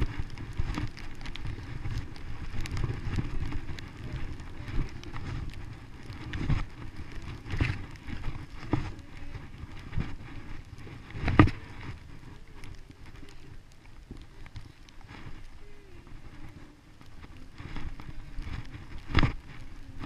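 Skis sliding over snow, a continuous scraping hiss with low wind rumble on the microphone, broken by several sharp knocks from bumps in the run, the loudest about eleven seconds in.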